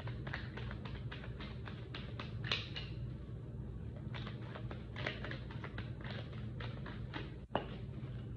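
A deck of tarot cards being shuffled by hand: a quick run of soft taps and slaps as the cards strike one another, about three a second, with one sharper click near the end.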